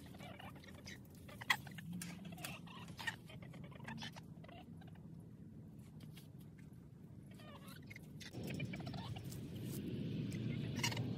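Backyard chickens clucking softly among scattered taps and scratches. A louder low rustling noise builds from about eight seconds in.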